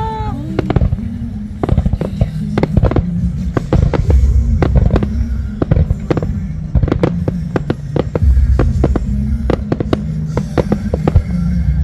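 Fireworks going off in rapid succession, many sharp bangs and crackles, over loud music with a deep bass line.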